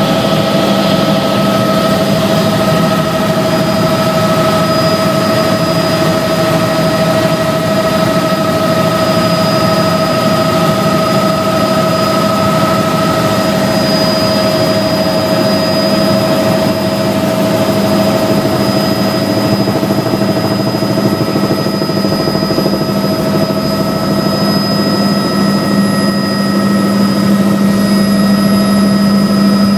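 Helicopter in flight heard from inside the cabin: a steady, loud drone of engine and rotor, with a low hum and several higher held whining tones over a rushing noise.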